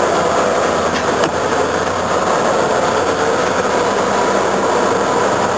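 EMD GP38-2 diesel locomotive's two-stroke V16 diesel engine running steadily while the locomotive stands still, a loud, even, unbroken noise.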